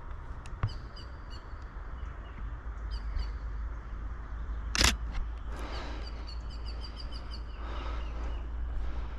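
Small birds chirping in runs of short, high, repeated calls over a steady low rumble, with a single sharp knock about five seconds in.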